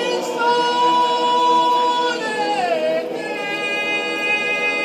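Choir singing long held notes, with a slide down in pitch a little over two seconds in.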